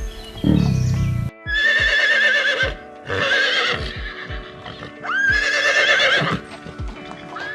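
A horse whinnying three times, each a loud call with a shaking, wavering pitch, a fourth starting near the end. A run of low thumps sounds underneath.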